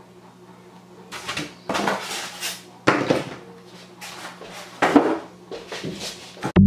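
Cardboard and foam packaging being handled: a series of rustles, scrapes and knocks, the sharpest about three and five seconds in, over a faint steady hum.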